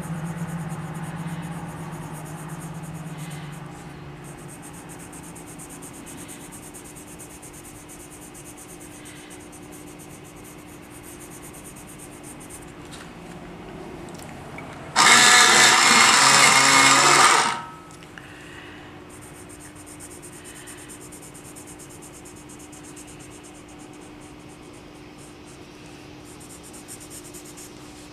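An electric pencil sharpener runs once for about two and a half seconds, a little past halfway through, sharpening a colored pencil. Around it, faint scratching of a colored pencil on paper.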